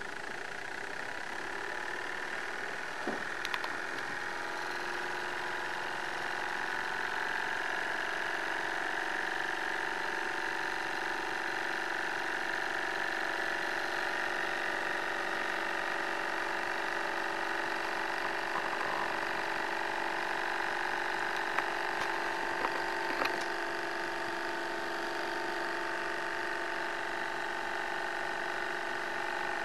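Model hot-air Stirling engine running: a steady mechanical whir and light rattle of its pistons and linkages, growing over the first several seconds as it gathers speed, then holding steady, with a few light clicks.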